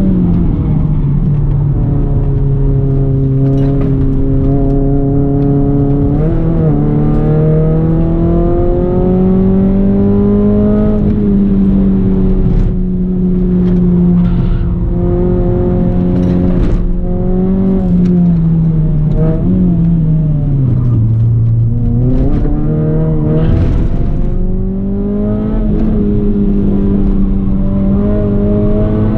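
Renault Clio 197's 2.0-litre four-cylinder engine driven hard on track. Its pitch climbs under acceleration and drops at each gear change. About two thirds through it sinks steadily under braking and downshifts, then climbs again toward the end.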